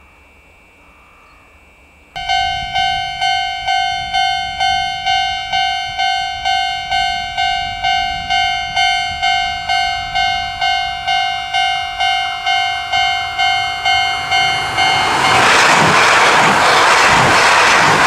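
Level-crossing warning bell ringing about twice a second. From about fifteen seconds in, an E6 series Komachi Akita Shinkansen train passes close by as a loud rush of train noise with a rhythmic beat of wheels on rail.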